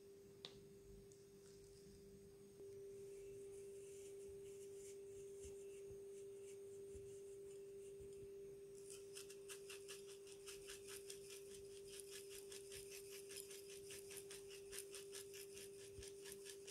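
Black pepper being dispensed over a boiled egg: a rapid, even run of faint gritty scratches starting about halfway through, over a steady low hum that gets slightly louder a couple of seconds in.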